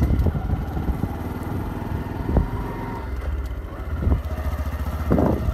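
Motorcycle running at riding speed along a dirt track, a loud steady low rumble of engine and road noise, with a couple of brief louder knocks about two and a half and five seconds in.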